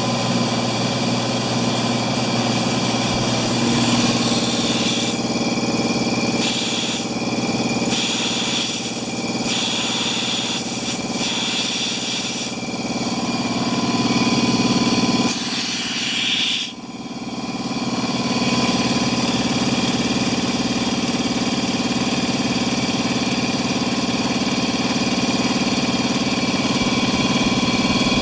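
Belt-driven electric wheelbarrow air compressor running steadily, its motor and pump being run in the hope that the pump, idle for eight years, will loosen up. A hiss of escaping air comes and goes over the first half and cuts off sharply about seventeen seconds in.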